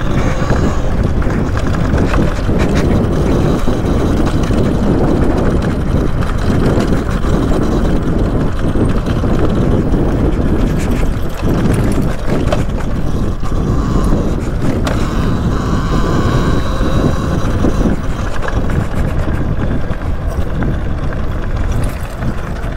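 Steady wind buffeting on the microphone mixed with rumble from the tyres and chassis of a Talaria Sting R MX4 electric dirt bike being ridden along a dirt trail; the motor has no engine note, so wind and trail noise make up most of the sound.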